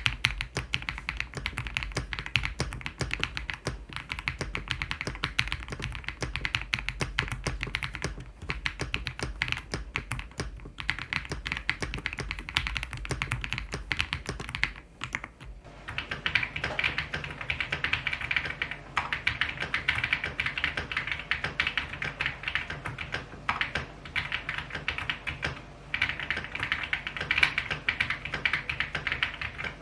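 Fast, continuous typing on a tape-modded Ajazz AK820 Max mechanical keyboard, a dense stream of keystrokes with a few brief pauses. About halfway through, the keystrokes turn brighter and lose their low end.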